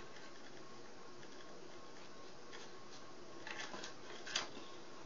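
Quiet steady room hiss, with a few faint brief rustles and a light click in the second half: small handling noises.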